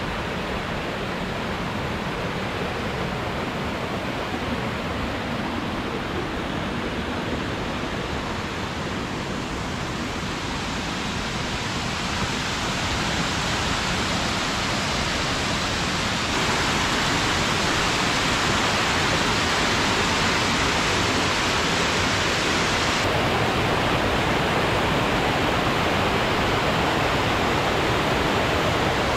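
Steady rush of falling water from a rocky mountain stream and the cascade of Steall Falls, with no break. It gets louder a little past halfway through.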